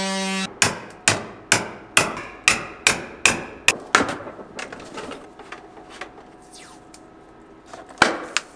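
An oscillating multi-tool stops about half a second in. Then a quick run of about nine sharp knocks at roughly two and a half a second comes from the plastic battery case as the cut lid is worked loose. Lighter clicks and scraping follow as the top comes away, with a few more loud knocks near the end.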